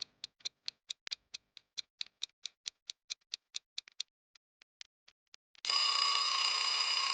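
Clock ticking sound effect counting down the answer time, about five ticks a second, thinning to a few scattered ticks. Then a loud, steady alarm tone starts near the end, signalling that time is up.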